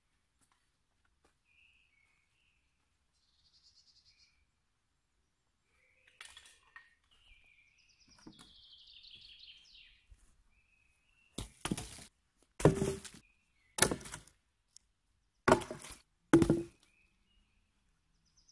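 Wooden poles dropped one after another onto the ground, about six sharp wooden knocks in the second half. Small birds chirp faintly before them.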